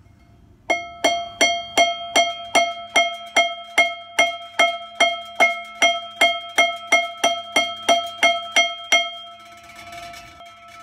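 Small hammer tapping a press-fit dowel pin into a lightened steel flywheel: about two dozen quick, evenly spaced strikes, roughly three a second, each making the flywheel ring with a clear bell-like tone. The blows stop near the end and the ringing fades.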